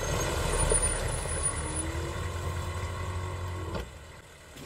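A large military truck's engine running with a low rumble, as a cartoon sound effect. It falls away sharply about four seconds in.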